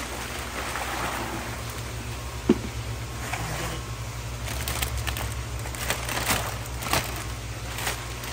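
Steady low hum of fish-tank pumps under a hiss of running water, with one sharp knock about two and a half seconds in and a few lighter clicks later.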